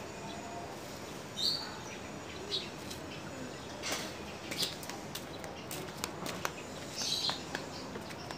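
Short high chirps of small birds, about four times, over a steady background hiss. Scattered sharp clicks and taps of hand tools on the motorcycle engine come in the middle of the stretch.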